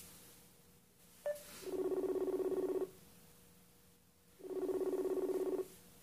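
A smartphone's outgoing-call ringing tone from a Messenger call that is trying to connect. A short click and blip are followed by two pulsing rings, each just over a second long, about a second and a half apart.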